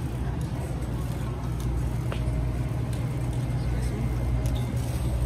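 Steady low rumble of a shopping cart rolling across a store floor, with a few faint clicks and rattles.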